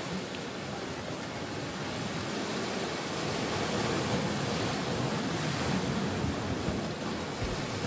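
Steady rushing wash of sea surf breaking along a rocky shore, swelling a little toward the middle.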